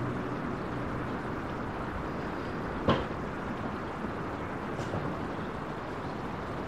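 Steady outdoor background hiss with one sharp knock about three seconds in and a faint tick near five seconds.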